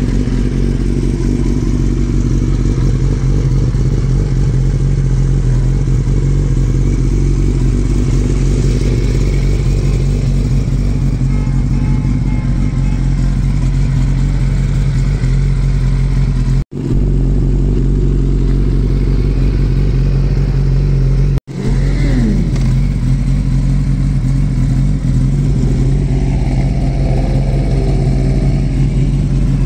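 Kawasaki Ninja ZX-10R's inline-four engine idling steadily, with a brief falling whine about two-thirds of the way through.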